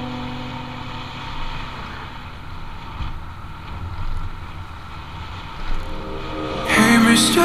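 Wind and road noise from a moving vehicle rushing over the microphone, a steady low rumble. Background music fades out at the start and comes back in loudly near the end.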